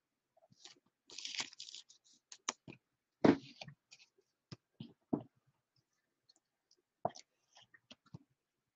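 Baseball trading card and clear plastic card holder being handled, as the autographed card is put into a rigid top loader: scattered light clicks and short rustles of plastic and card. The loudest click comes about three seconds in.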